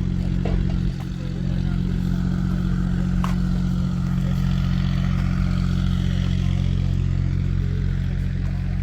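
An engine running steadily, giving a constant low hum, with a few faint clicks.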